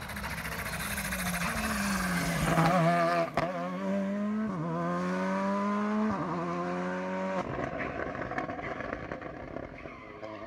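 Rally car accelerating hard, engine pitch climbing and then dropping sharply at each upshift, three shifts about a second and a half apart, with one sharp crack just before them. After the last shift the engine fades away.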